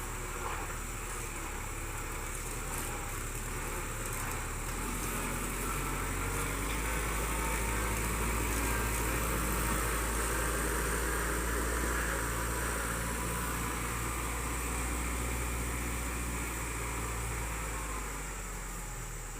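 Tractor engine running steadily, growing louder through the middle and easing off near the end.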